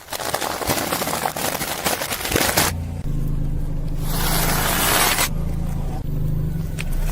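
A car's tyre rolling over and crushing objects with dense crackling and crunching. This gives way after about three seconds to the car's engine running low and steady, with a hissing burst about four seconds in.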